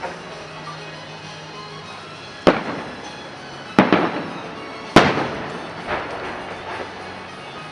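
Aerial fireworks bursting: three loud booms a little over a second apart near the middle, each trailing off in echo, with a few fainter bangs before and after.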